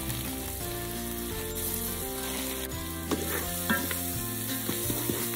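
Chopped onions and spices sizzling in oil in a Ninja Foodi's inner pot on sear/sauté high, as dried fenugreek leaves fry in. A wooden spoon stirs and scrapes through the mixture from about three seconds in.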